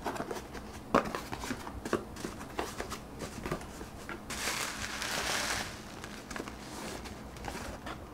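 Cardboard box and bubble wrap being handled while unpacking: scattered crinkles and taps, with a longer rustle about halfway through.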